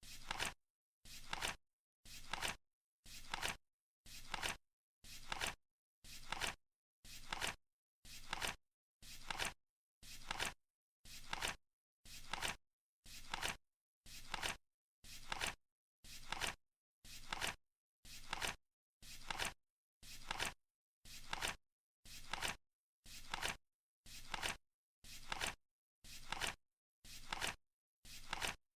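Flip clock's seconds flaps turning over, one short crisp flip every second in a steady rhythm.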